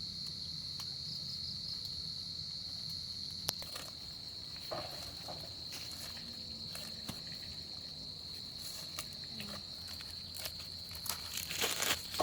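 A steady high-pitched insect drone, with scattered rustles and crackles that bunch up near the end.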